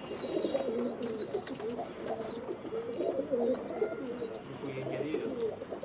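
A flock of domestic pigeons cooing, many overlapping coos at once, with a thin high chirp repeating above them.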